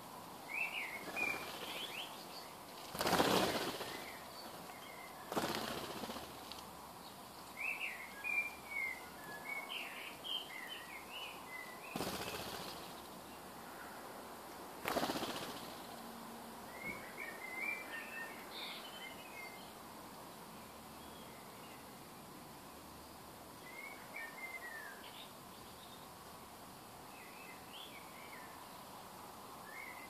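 European starlings' wings flapping close by as they fly in and out, in four loud whooshes in the first half. Between them come short clusters of bird chirps.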